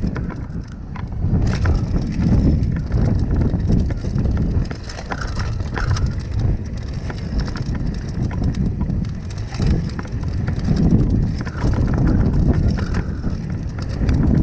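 Mountain bike riding fast down a dirt trail: wind buffeting the microphone in a steady low rumble that swells and eases, with tyres crunching over the dirt and the bike's chain and parts rattling and clicking over bumps.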